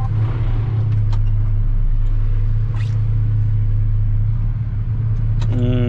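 Truck engine running steadily, a continuous low drone, with a few faint clicks.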